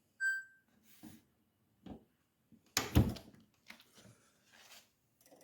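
GE dishwasher control panel gives one short electronic beep. About three seconds in, the dishwasher door is pushed shut with a thump, starting the cycle, with a few light clicks and rustles around it.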